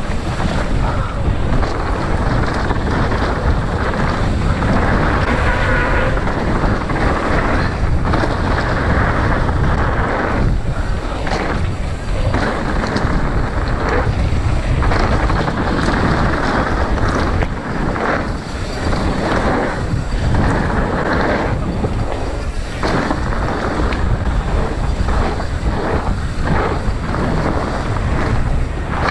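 Heavy wind buffeting the microphone, with steady rumbling from a mountain bike's tyres running down a dirt trail. The noise surges and dips irregularly.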